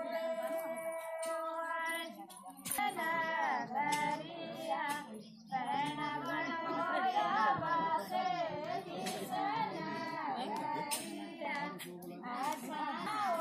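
A group of women singing a Himachali wedding folk song together, with two short breaks between lines.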